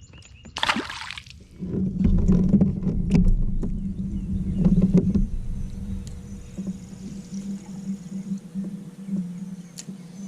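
Pedal drive of an Old Town Sportsman PDL 120 kayak whirring with a steady low hum as it is pedalled. It starts about a second and a half in, is strongest for the next few seconds, then carries on more softly and unevenly. A short splash-like rush comes just before it.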